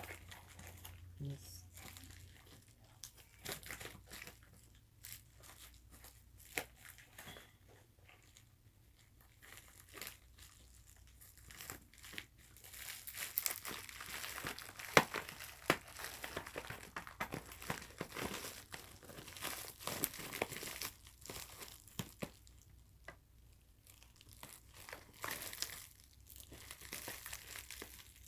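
A mail package being opened by hand: packaging crinkling and tearing, with scattered clicks and rustles that are busiest about halfway through.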